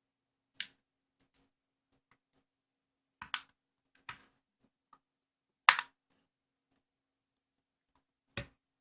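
Plastic case parts of a Kodak C653 compact digital camera being handled and fitted back together: a dozen or so irregular clicks and taps, the sharpest about six seconds in and another near the end.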